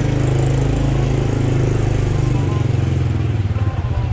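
Small motorbike engine running as the bike is ridden through an alley, a steady low hum; about two and a half seconds in the engine note changes and turns choppier.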